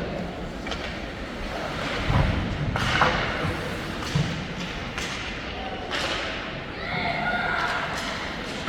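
Ice hockey game on a rink: irregular thuds and clacks of sticks, puck and players hitting the boards, with voices calling out a little before the end.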